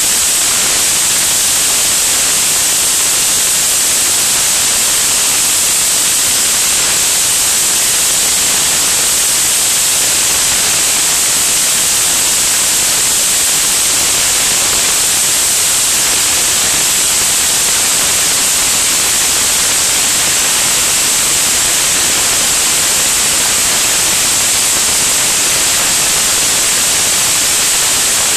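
Slipstream rushing over a camera mounted under a small plane's wing in flight: a loud, even hiss that never changes.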